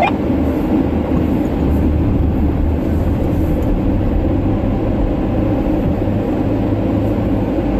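Porsche Macan's twin-turbo V6 pulling up a steep dirt hill climb at steady throttle, heard from inside the cabin as a steady low drone.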